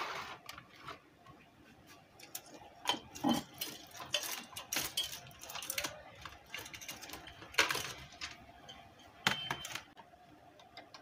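Irregular clicks and light metallic knocks from handling a Sony Xplod car stereo head unit: its metal chassis being shifted and turned and its volume control being tried, with two sharper knocks in the second half.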